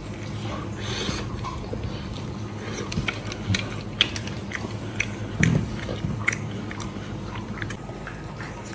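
A person biting and chewing meat off a teriyaki pork chop bone, with many short, scattered clicks of teeth and mouth.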